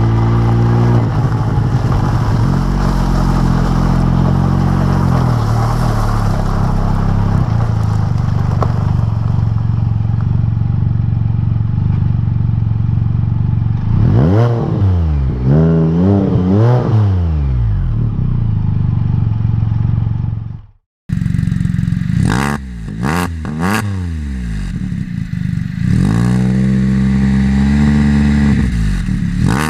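Can-Am Spyder RT Limited's Rotax 1330 three-cylinder engine running through RLS Crusher series aftermarket mufflers on the road: a steady cruise, then several quick revs rising and falling in pitch. The sound cuts out briefly about two-thirds of the way through, then comes back with more revving.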